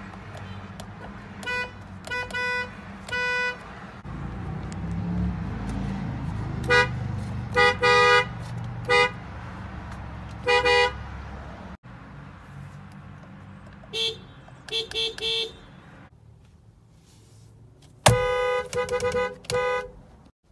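Japanese car horns honking in short beeps, in four groups: three beeps, then a run of about six, then four quick ones, then a fast string of beeps near the end, the loudest of all. Under them runs a low engine and road rumble that changes abruptly between groups.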